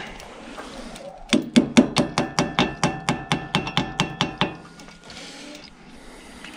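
A hammer striking steel in a quick run of about twenty blows, some six a second, each ringing, for about three seconds: driving a bolt into a rotary tiller's hitch bracket.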